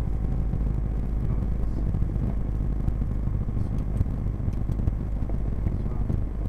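Cessna 172's piston engine idling steadily, the propeller turning slowly, a low even drone.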